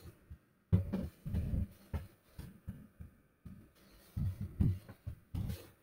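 Computer keyboard typing, heard as a run of short, uneven, muffled thumps.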